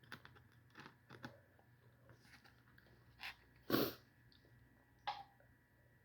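Soft eating sounds: scattered small clicks and chewing, with a louder short noise a little past the middle and another about five seconds in.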